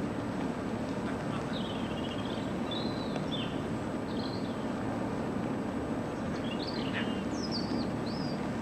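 Small birds chirping, short scattered calls, over a steady low background rumble.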